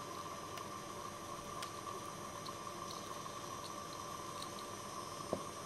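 Faint, steady buzz with a hiss and a thin high tone: a car ignition coil driven by an oscillating relay, putting out high voltage.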